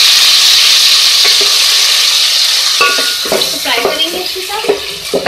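Chopped tomatoes frying in hot oil with a loud sizzle that slowly fades as they settle. From about three seconds in, a wooden spoon stirs and scrapes against the metal pot with light knocks.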